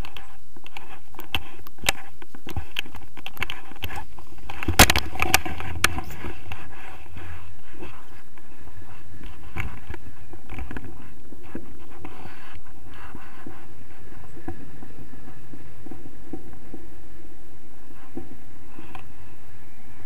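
Knocks, clicks and scrapes from the camera mount and harness gear while a tandem paraglider runs to launch, loudest about five seconds in. Then steady rushing wind noise on the camera's microphone once it is in flight.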